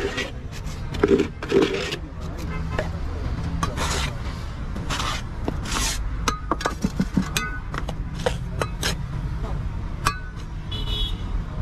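Steel trowel and scoop scraping and tapping on concrete mix packed in a mould, with a string of short metallic clinks that ring briefly in the second half.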